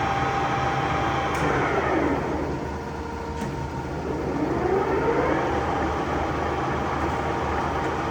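STANKO 1M63 centre lathe running with a steady gear whine and motor hum. About a second and a half in, the whine falls in pitch as the spindle slows, then rises again as it speeds back up, with a couple of sharp clicks along the way.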